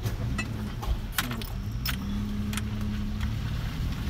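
A car running while driving slowly, heard from inside the cabin: a steady low engine hum, with irregular sharp clicks and jingling rattles over it, most of them in the first two seconds.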